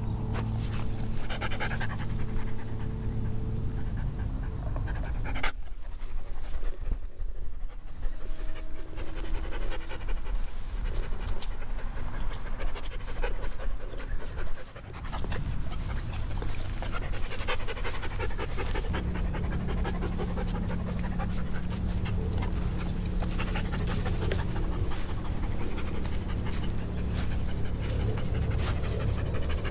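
Large black poodle panting close to the microphone.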